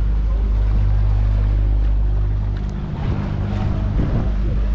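Motor of an open canal tour boat running, with water churning along the hull. About halfway through, the steady engine note drops and turns uneven.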